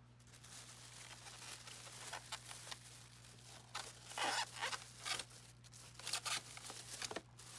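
Faint crinkling and rustling of the clear plastic bags around a new pond pump and its controller as they are handled and unwrapped, louder for a few moments in the middle.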